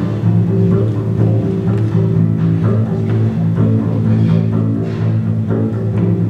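Acoustic guitar strummed together with a plucked upright double bass, playing live.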